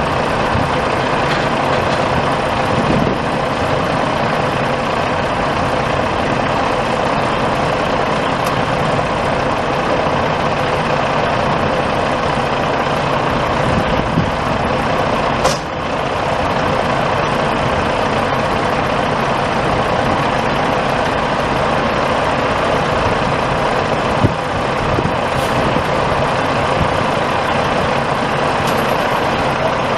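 Caterpillar C15 14.6-litre inline-six turbo diesel of a 2001 Kenworth W900B semi truck idling steadily, with a few short clicks.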